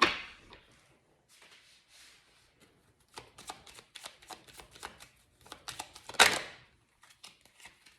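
Tarot cards being shuffled and handled: a sharp slap at the start, a run of rapid papery clicks from about three seconds in, and another loud slap around six seconds.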